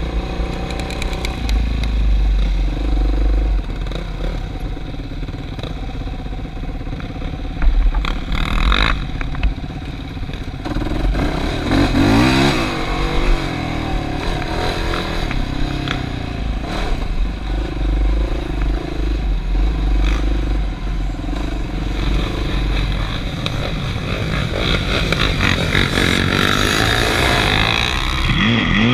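ATV engine running under way, its pitch rising and falling as the throttle is worked, with sharp revs about twelve seconds in and again near the end. A few knocks and rattles come from the machine over rough ground, and heavy wind rumble sits on the microphone throughout.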